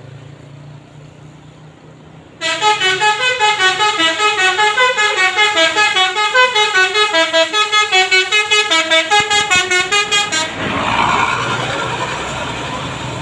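A bus's 'telolet basuri' multi-tone musical horn plays a fast tune of short notes, about four or five a second, stepping up and down in pitch. It starts a couple of seconds in, sounds loudly for about eight seconds, then stops and gives way to a broad rush of noise.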